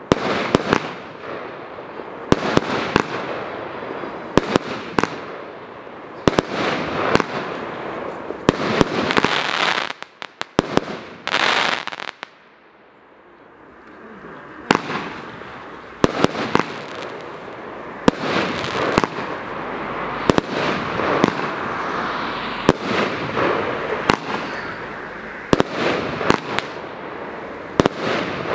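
Copenhagen Silver consumer fireworks battery firing: sharp bangs in quick succession as its shots launch and burst, with a short lull about halfway through before the shots resume.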